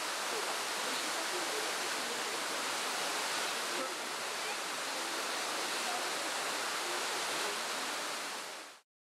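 Steady rush of a waterfall and the cascades falling over rocks below it, fading and cutting to silence just before the end.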